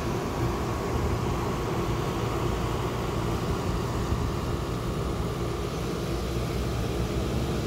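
City street ambience: a steady rumble of traffic with an even hiss of background noise.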